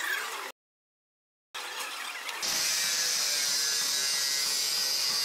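Power grinder grinding steel: a steady, high whine with a hiss that starts about two and a half seconds in, after a moment of dead silence.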